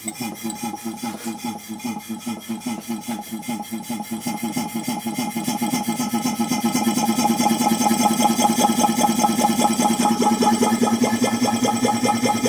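DWM Copeland compressor running slowly off a variable frequency drive at about 10 Hz, making a regular, rapid chugging pulse. The pulse quickens and grows louder over the first half as the drive brings the speed up, then holds steady.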